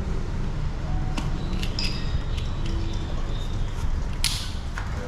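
Metal frame parts of a camping cot clicking and knocking as a leg bracket is fitted onto the side pole, with the sharpest click about four seconds in, over a steady low rumble.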